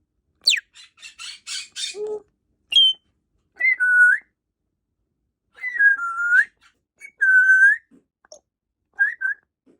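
African grey parrot whistling and squawking. A quick falling whistle, a run of harsh rapid rasps about a second in, then several short whistles, some dipping in pitch and sweeping back up.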